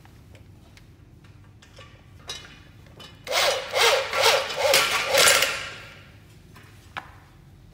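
Corded electric drill run in a series of short trigger pulses for about two seconds, its pitch wavering, with a few light knocks of handling before and after.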